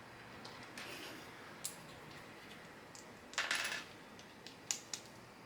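Plastic LEGO pieces clicking and rattling as they are handled, with a short clatter of loose pieces about three and a half seconds in.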